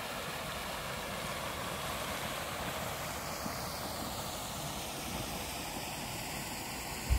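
Steady outdoor background noise, an even rush with no clear tone or rhythm, with a short low thump near the end.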